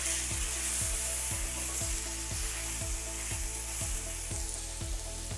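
Seasoned skirt steak sizzling in hot olive oil, freshly laid in the pan, the sizzle easing a little toward the end.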